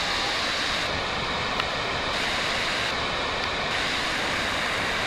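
Steady roar of the Genesee River's Upper Falls at Letchworth, a high-volume waterfall plunging into its foaming pool.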